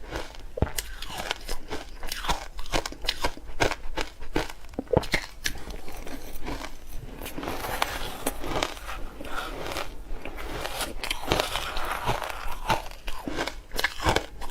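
Ice being bitten and chewed close to the microphone: a run of sharp cracks as pieces snap, with stretches of denser grinding crunches as the fragments are chewed.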